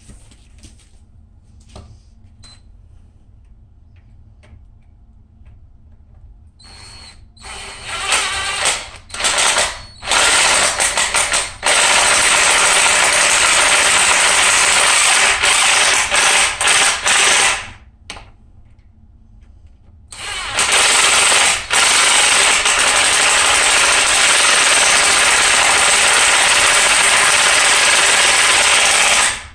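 Vacuum cleaner switched on and off in several short bursts, then running steadily for about six seconds. It stops for a couple of seconds, starts again, runs about nine seconds and cuts off.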